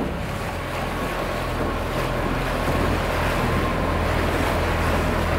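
Small outboard motor running steadily as a dinghy crosses the water, with water rushing past and wind on the microphone.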